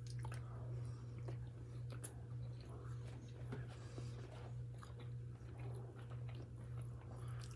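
Faint chewing, with scattered small mouth clicks, over a steady low hum.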